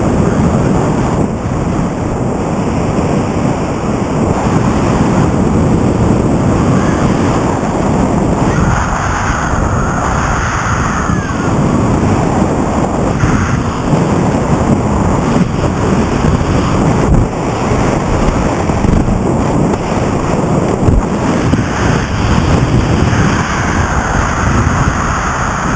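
Steady wind rushing over the microphone of a powered paraglider in flight, with no engine heard: the paramotor's engine has quit and the wing is gliding.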